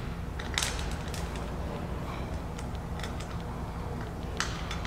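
A few sharp clicks and knocks as an awning mounting bracket is handled and fitted onto a camper's roof rail, over a steady low hum.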